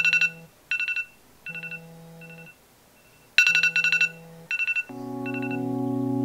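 Smartphone alarm ringing: groups of rapid, high electronic beeps, each group followed by fainter repeats, the pattern heard twice. About five seconds in the alarm stops and a sustained low, bell-like musical tone begins.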